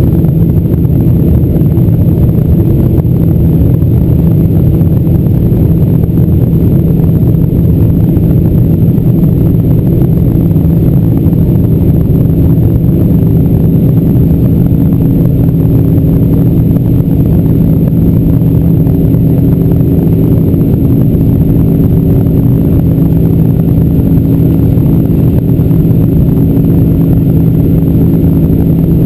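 Boeing 747-400's General Electric CF6-80C2 turbofan engines heard from inside the cabin, running at a steady low thrust as the jet rolls slowly on the ground, with no spool-up. Loud, even rumble with a few steady hums.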